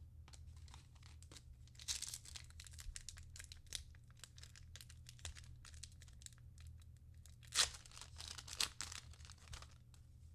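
A trading card pack's wrapper being crinkled and torn open, with a run of crackling and a sharp, loud rip about seven and a half seconds in.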